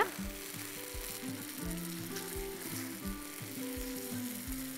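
Thinned mashed-potato cream sizzling and bubbling in a pan on the stove as a silicone spatula stirs it, under soft background music with held notes and a light beat.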